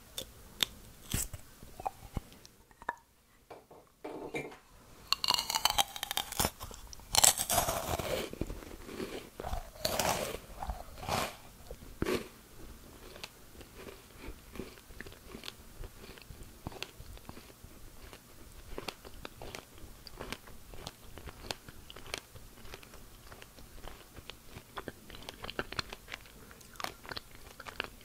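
Close-up eating of white-chocolate-coated dried strawberries. Loud crisp crunches as the set chocolate shell and dried fruit are bitten, about five to eight seconds in and again around ten to twelve seconds, then steady chewing with many small crackles.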